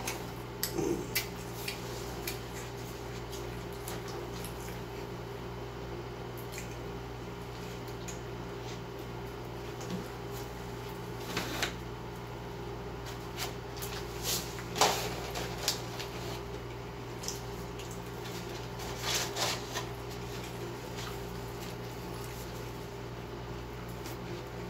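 Scattered soft clicks and mouth noises of someone eating fast food, with a few louder brief handling sounds near the middle, over a steady low hum in the room.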